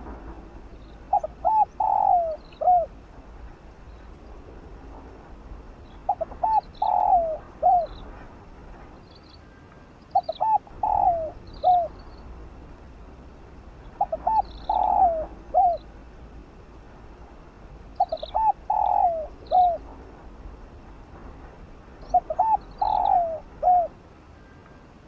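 A spotted dove cooing its song over and over: six phrases about four seconds apart. Each is a couple of short coos followed by a longer falling coo and a final short note. Faint high chirps of small birds sound between them.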